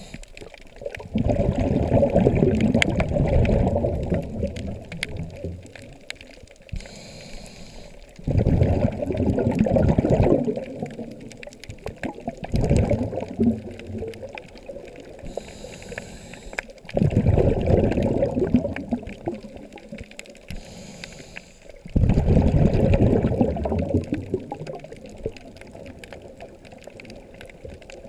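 Scuba diver breathing through a regulator underwater: five bursts of exhaled bubbles gurgle out of the exhaust valve, one every four to five seconds and each lasting one to three seconds, with a fainter hiss from the demand valve on the inhales between them.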